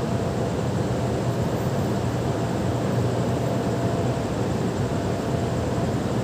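2018 Hyundai Elantra's exhaust, fitted with a muffler, idling steadily in a basement car park, mixed with the garage's background noise.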